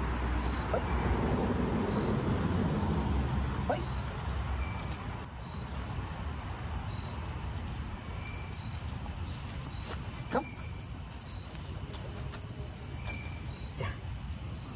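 Steady high-pitched chirring of crickets. There is a low rumble in the first few seconds and a few faint clicks, the clearest about ten seconds in.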